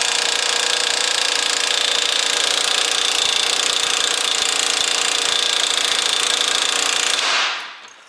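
Long-barrel pneumatic air hammer running in one long continuous burst, hammering on a socket set over the nut of a rusted rear suspension bolt to drive it out; the bolt is thought to be seized in its bushing. It stops abruptly about seven seconds in.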